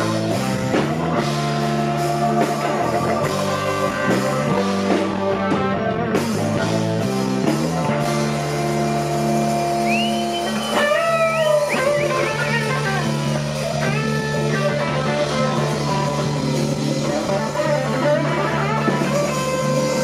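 A live blues band playing: electric guitar lead over Hammond organ, bass guitar and drums. High bent guitar notes come in about halfway through.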